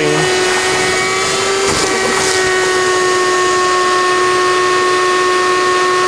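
Wet/dry shop vac running steadily, a constant motor whine over the rush of air, as its hose sucks debris out of an air conditioner's insulation.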